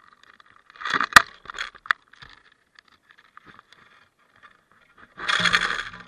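Handling noise from a small camera hung on a fishing line with a sinker rig: scraping and rubbing with several sharp clicks about a second in, then a second of rushing noise near the end.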